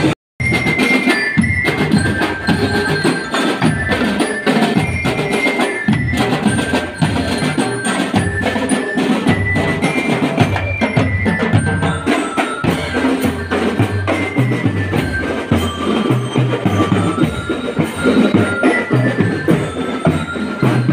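Drum and lyre corps playing on the march: snare and bass drums keep a steady beat under a melody of bright bell-lyre notes. The sound cuts out completely for a moment just after the start.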